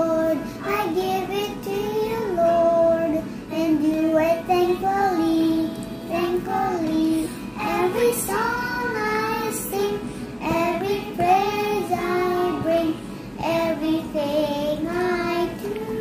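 A young boy singing a slow melody, holding some notes for about a second between shorter phrases.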